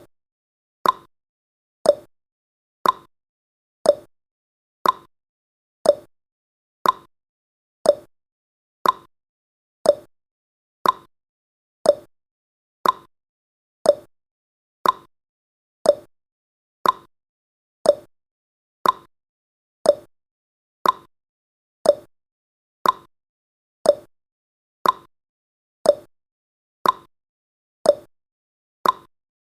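Countdown timer ticking sound effect: one short, sharp tick every second, evenly spaced.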